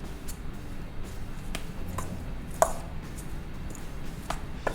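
A utensil knocking and clinking against a mixing bowl as vegetables are mixed into smashed potatoes: a handful of separate light taps, the sharpest a ringing clink about two and a half seconds in.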